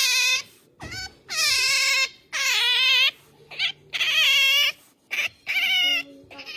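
Pet otter making high-pitched, wavering whining squeals over and over, each call about half a second to a second long: its begging, attention-seeking call.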